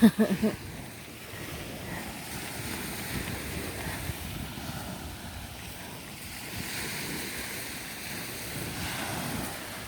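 Small waves washing on a sandy beach, swelling and ebbing a few times, with wind on the microphone. A brief pitched sound, the loudest moment, comes at the very start.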